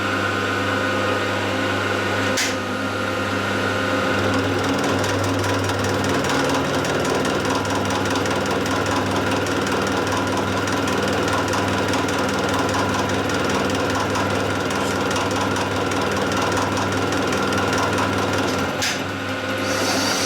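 Hafco milling machine running in low range, its carbide cutter taking a half-millimetre cut with a fast rattling chatter over the steady hum of the motor and gears. The chatter is the sign of a spindle speed too slow for the carbide, with the mill's gears chattering too. Two sharp clicks, one about two seconds in and one near the end.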